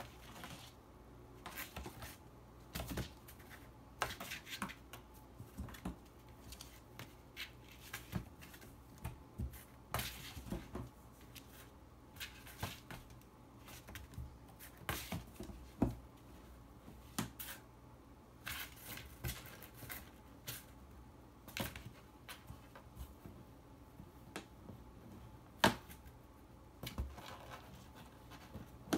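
Two kittens play-fighting in and around a cardboard box: irregular scratching, tapping and rustling of claws and paws on cardboard, cloth and a wood floor, with one sharper knock near the end.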